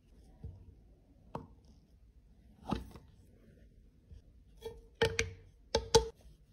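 Sparse sharp clacks and knocks of a hard plastic compact case being handled and pulled apart. A few single taps come first, then a quick run of louder clacks near the end.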